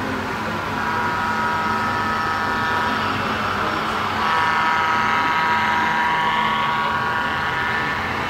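Model diesel locomotive's sound-decoder horn blowing two long multi-chime blasts, the second about a second after the first ends and longer, over the steady hum of the hall.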